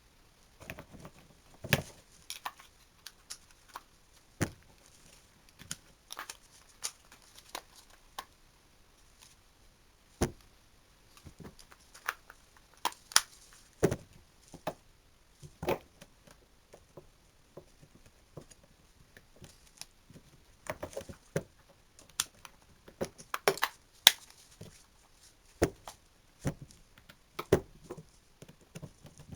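Irregular sharp clicks, taps and knocks, with some rustling, from hands working on an electric drill and its small parts and tools. The sounds come singly or in short clusters, with a busier stretch after about 20 seconds.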